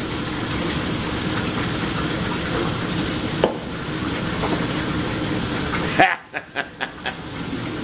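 Kitchen faucet running water into the sink, a steady rushing hiss that is shut off suddenly about six seconds in.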